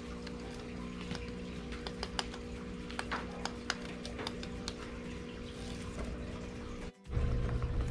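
Rabbit gnawing on a hanging dried-grass chew toy: irregular dry crunching clicks over a steady low hum. Near the end it cuts out for a moment and a louder low sound takes over.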